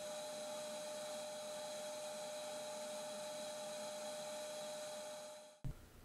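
Craftsman 6-gallon shop vac running steadily with an even motor whine, pulling suction on an AC condensate drain line through a taped-on hose. It cuts off abruptly about five and a half seconds in, followed by a brief knock.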